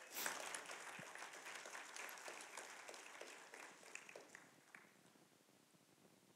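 Congregation applauding: a faint, scattered round of clapping that starts at once and dies away over about four seconds, ending in a few lone claps.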